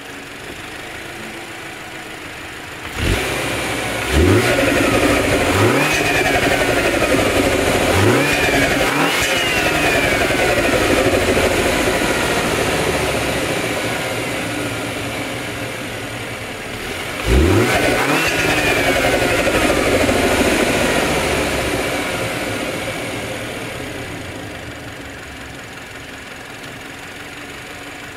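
2015 Mini Cooper S's turbocharged four-cylinder engine idling, then revved in quick blips: five sharp rises in close succession a few seconds in, and one more a little past halfway. Each time the revs fall slowly back toward idle.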